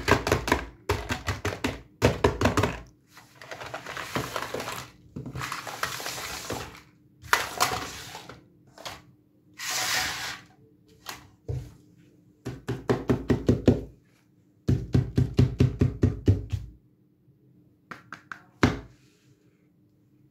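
Hard plastic toy pieces clattering and knocking together as hands pick up and move them across a table, in repeated bursts of quick clicks with short stretches of scraping.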